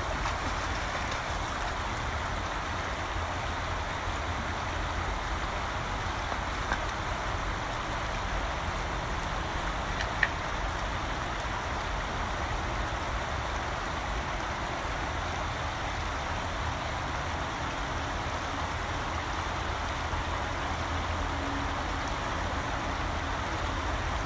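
Shallow creek water rushing over stones in a steady, even wash, with a low rumble underneath. Two short sharp clicks stand out, at about seven and ten seconds in.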